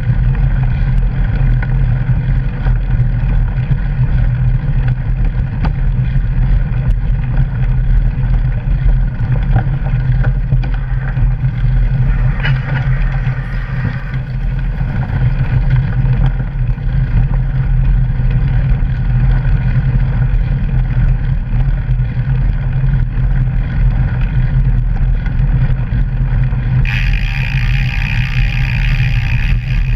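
Rumble and wind buffeting picked up by a mountain bike's rear-facing mounted camera as the bike rolls over a gravel forest track, a steady loud noise with no letup. About three seconds before the end a brighter hiss joins it.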